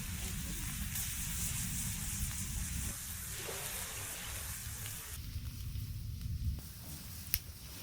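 Food sizzling on a grill over an open wood fire: a steady frying hiss over a low rumble, with one sharp pop near the end.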